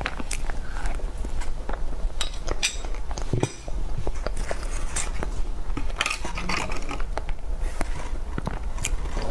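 Close-miked eating sounds: small mouth clicks and chewing, with a metal spoon clinking against a ceramic plate, then a short crinkling rustle about six seconds in as an egg tart is lifted from its aluminium foil cup.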